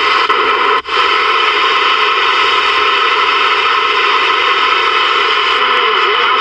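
Steady static and hiss from a Ranger VR-9000 11-meter multimode radio's receiver while it is tuned up the band, with a brief drop in the audio about a second in.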